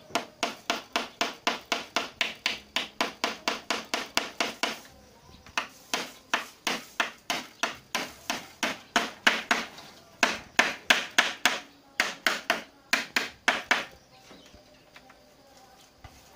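A small hammer striking bamboo poles in quick, even blows, about four a second, in several runs with short pauses between, stopping a couple of seconds before the end.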